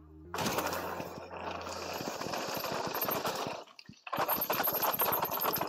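Mountain bike riding over a rough dirt trail: a loud, dense rattle of tyres on the ground and the bike clattering, with wind noise. It breaks off briefly about four seconds in, then resumes.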